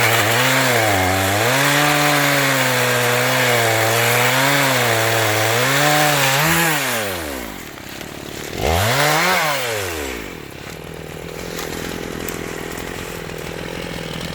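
Gasoline chainsaw cutting oak, its engine pitch wavering under load. About seven seconds in the revs drop, the saw is revved once more briefly, then it settles to a steady idle.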